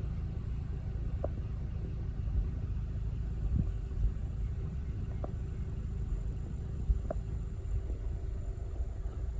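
Car engine idling while stopped, a steady low rumble with a faint hum, and a few faint ticks.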